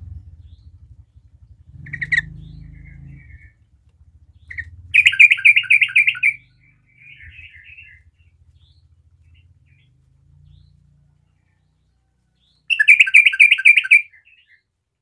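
Yellow-vented bulbul singing: two loud, rapid bubbling song phrases, one about five seconds in and one near the end, with a few short chirps between them.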